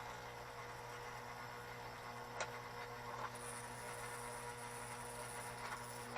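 Lionel #464 sawmill accessory running on low AC voltage: a steady electric hum. A few light clicks come through it, the sharpest about two and a half seconds in.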